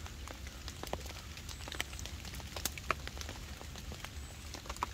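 Light rain: scattered raindrops ticking irregularly on a canvas tarp and the wet leaf litter, over a low steady rumble.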